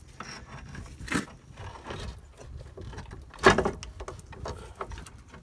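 Metal clunks and knocks from a rusty steering knuckle and hub being shifted by hand to seat the lower ball joint pin, with light clatter between them and the loudest knock about three and a half seconds in.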